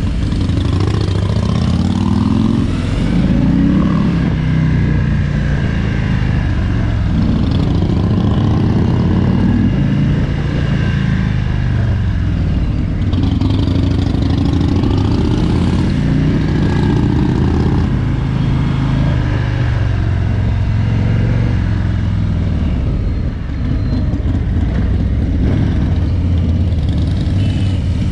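Harley-Davidson Road King's Milwaukee-Eight 107 V-twin engine running under way, its pitch rising and falling several times as the bike accelerates through the gears and eases off.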